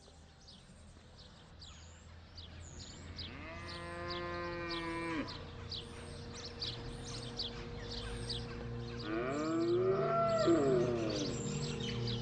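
A cow mooing twice: one long call about four seconds in and a wavering one near ten seconds. Behind it, birds give short, high chirps over and over, about two a second.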